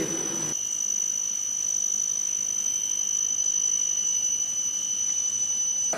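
A steady high-pitched tone, held unbroken with a fainter lower tone beneath it, that cuts off suddenly at the end.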